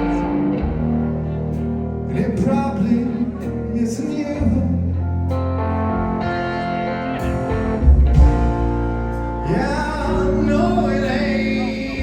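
Live band playing a song, with guitar and bass chords and a voice singing a line near the end.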